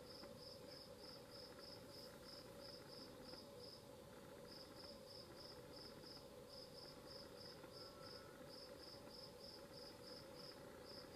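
Faint cricket chirping, a high chirp repeated about three times a second with a couple of brief pauses, over a faint steady hum.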